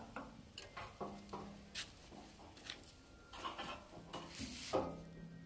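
Light clicks and rattles of hands pushing a fuel hose onto the fuel tap of a Stanley petrol generator, with two short low vocal sounds of effort, about a second in and near the end.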